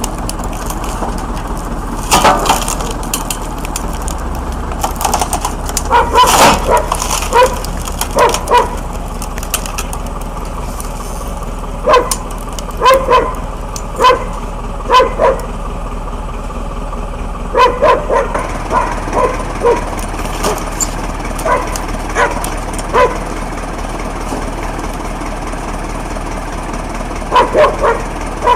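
A dog barking over and over in short runs of barks, over a steady low machine hum.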